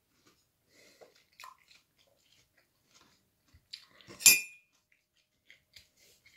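Faint small handling clicks, then about four seconds in a single sharp clink of a hard object that rings briefly at a high pitch.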